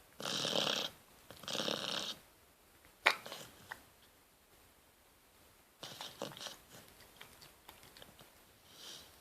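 Rottweiler puppy snoring: two snores, each under a second, in the first two seconds, then a single sharp click about three seconds in, a few softer clicks around six seconds, and a faint breath near the end.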